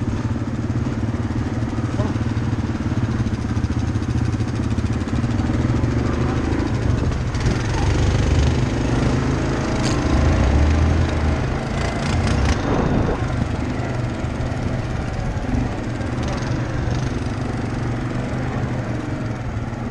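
Off-road vehicle engine running steadily under throttle on a rough dirt trail, with wind and noise from the ride, and a few knocks and rattles around the middle.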